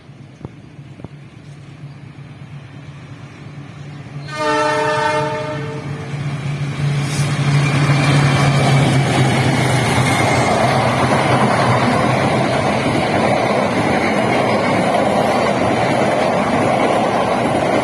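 A train approaching with a low steady engine drone that grows louder, sounds a short horn blast about four seconds in, then passes close by with loud, continuous wheel-on-rail noise.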